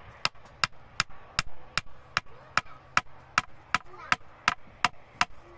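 Sharp knocks or strikes repeated at an even pace, about two and a half a second.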